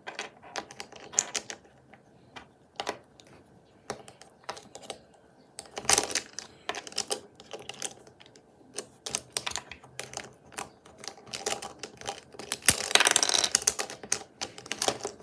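Plastic Rubik's cube pieces clicking and clattering as they are handled and pressed into place, in irregular sharp clicks, with a quicker run of clicks near the end.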